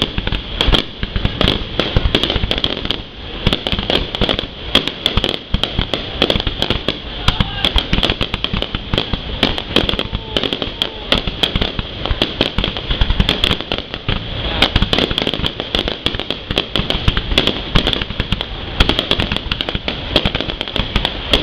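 Fireworks going off in a dense, continuous barrage: many sharp bangs and crackles a second, with no pause.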